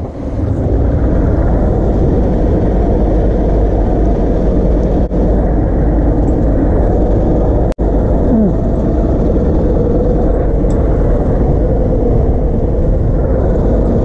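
Yamaha 250 outboard motor running steadily with the boat under way, its churning wake and water rushing past the hull mixed into a steady rumble. The sound cuts out abruptly for an instant a little before halfway through.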